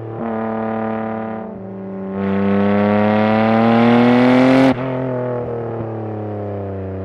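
Car engine idling, then revving up with a smooth rise in pitch for about two and a half seconds. It drops abruptly back to idle about two-thirds of the way through.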